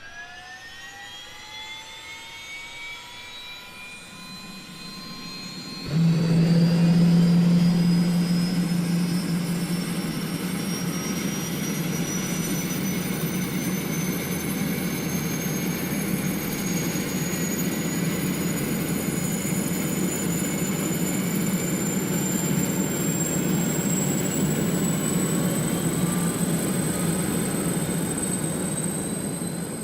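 Jet engine spooling up: a whine rises quickly in pitch, and about six seconds in a loud low rumble cuts in as it lights. The whine then keeps climbing slowly over the steady rumble.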